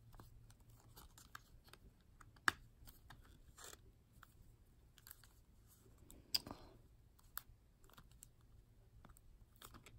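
Faint handling noises of a cellophane-wrapped paperboard playing-card box being turned over and pried at to open it: scattered small clicks and crinkles of the wrapper and card stock, with a sharper click about two and a half seconds in and a louder crinkling rustle a little after six seconds.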